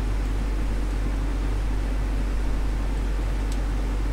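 Steady low mains hum under an even hiss from powered-up bench test equipment, with a faint tick about three and a half seconds in.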